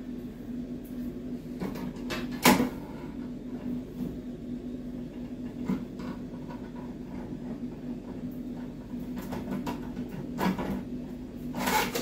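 Light plastic clicks and knocks as white plastic actuator rods are handled and pushed into a Geberit flush-plate mounting frame. The loudest knock comes about two and a half seconds in and a few more are scattered through, over a steady low hum.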